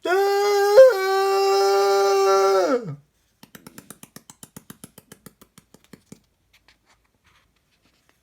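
A man's long, loud cry held on one high pitch for nearly three seconds, breaking briefly early on and sliding down as it ends. It is followed by a run of soft quick clicks, about six a second.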